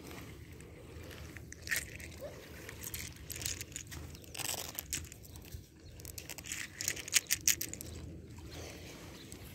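Small seashells clicking and crunching together in a hand, in irregular bursts with a quick cluster of clicks about seven seconds in, over a low steady rumble.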